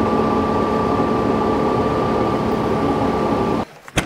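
Kubota M4 tractor's diesel engine running at a steady speed with a constant hum, then stopping abruptly about three and a half seconds in, followed by a single sharp click.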